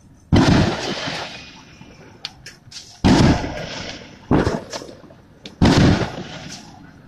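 Fireworks bursting: four loud bangs, the first about half a second in and the rest a second or more apart, each fading away over a second or so, with a few smaller sharp cracks between the first and second.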